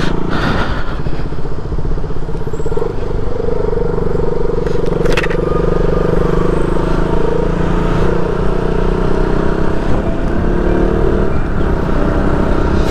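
Motorcycle engine running steadily at road speed, picked up by the rider's own camera mic, with one brief click about five seconds in.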